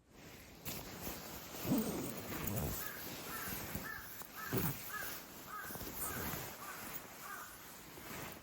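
A crow cawing in a quick series of short calls, about two a second, for several seconds. Two louder low sounds that fall in pitch stand out, one early and one in the middle.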